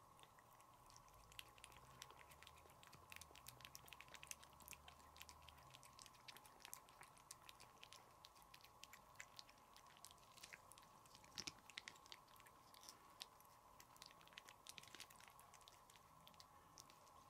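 Domestic cat licking a lickable paste treat squeezed from a tube: faint, quick, irregular wet tongue clicks, over a faint steady hum.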